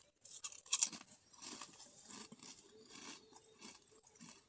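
Ruffles potato chips being crunched and chewed close to the microphone, a run of short crisp crunches a few times a second after a loud crackle just under a second in.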